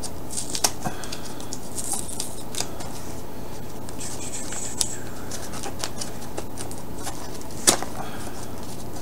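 A knife slitting open a paper envelope: scratchy cutting strokes and paper rustling with scattered small clicks, a sharper click near the end, over a low steady room hum.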